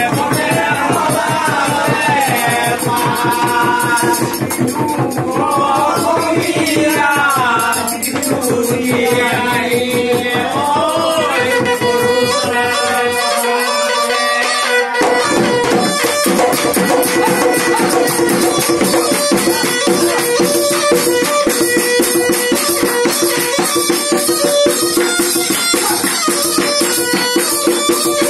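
Assamese pepa (buffalo-horn pipe) playing a folk melody over a hand-beaten dhol drum rhythm. The melody bends and wavers for the first dozen seconds, then settles into longer held notes. The drum's deep strokes drop out briefly about halfway through.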